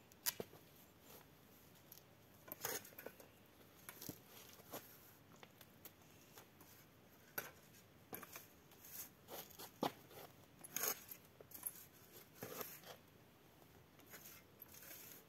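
A garden fork working soil in a garden bed: faint, irregular crunches, scrapes and sharp clicks as the tines are pushed in and levered to loosen garlic bulbs for pulling.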